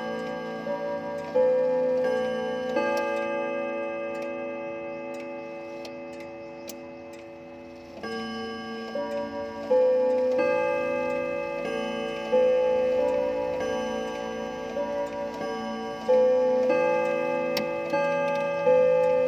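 Moathe grandfather clock chiming: the movement's hammers strike the hanging chime rods one after another, each rod ringing on and slowly fading. The notes come at different pitches in a slow, uneven run, with a long fading gap in the middle.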